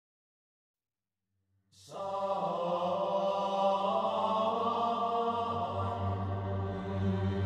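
Silence, then about two seconds in background music starts: sustained chant-like voices held over a low drone.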